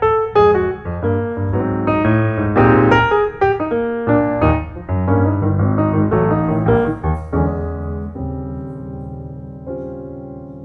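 Background piano music, a run of struck notes and chords that slows into held notes fading away near the end.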